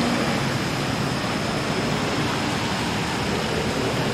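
Heavy rain falling in a steady hiss, with traffic running on the wet road beneath it.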